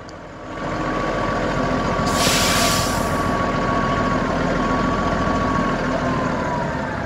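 1976 Kenworth K100 cabover's diesel engine running, stepping up in revs about half a second in and holding there, with a steady high whine that falls away near the end. A burst of air hiss about two seconds in, lasting about a second.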